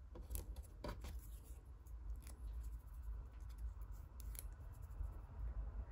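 Faint small clicks and rustles of fingers handling paper pieces and peeling foam adhesive dots off their backing sheet, a few scattered ticks over a low steady room hum.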